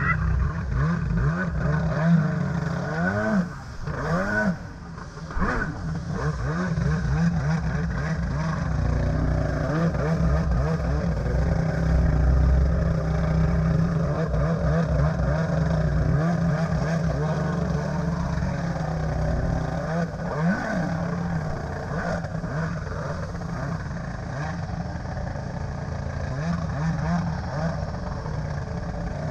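Two-stroke stand-up jet ski engine revving, its pitch swooping up and down several times in the first few seconds, then running more steadily at speed with a few more rises and falls.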